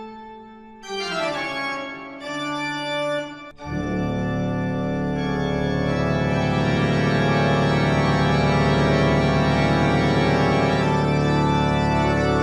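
Organ music: a few notes stepping down in pitch, then a full, deep chord held from about three and a half seconds in to the end.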